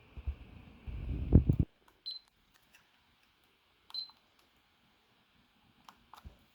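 Handling rumble and knocks against a Winchester gun safe's electronic keypad, then two short, high keypad beeps about two seconds apart as buttons are pressed, and a few light clicks near the end.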